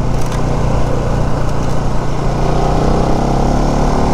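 Bajaj Pulsar NS200's single-cylinder engine running at low speed under way, over a steady rush of riding noise; the engine note climbs a little in pitch in the second half as it picks up speed.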